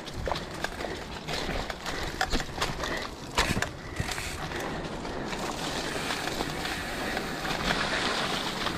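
Mountain bike rolling fast over a rough dirt trail: a steady rush of tyre noise, with frequent short knocks and rattles from the bike as it hits bumps.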